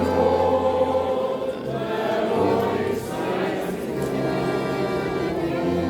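A group of voices singing together, with long held chords.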